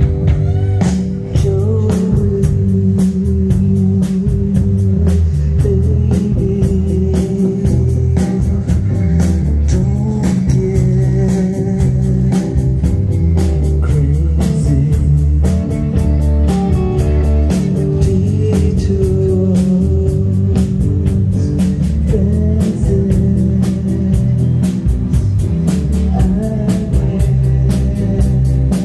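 A live rock band playing: electric guitar, electric bass and drum kit, with a steady beat.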